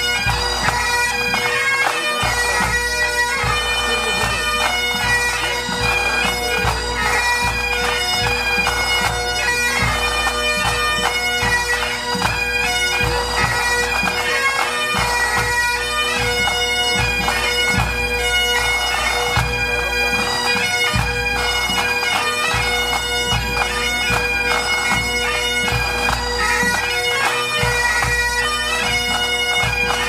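A pipe band playing: Great Highland bagpipes sound a tune over their steady drones, with snare, tenor and bass drums beating time.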